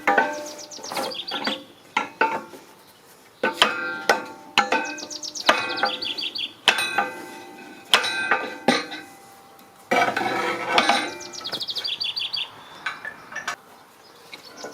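Irregular metal-on-metal strikes on steel, each ringing briefly, about a dozen in all, with birds trilling high in the background between them.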